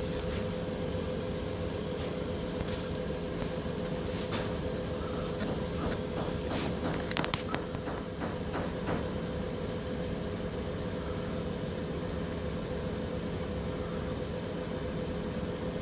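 A steady mechanical hum with several constant whining tones, low and high, and a quick run of clicks about seven to nine seconds in.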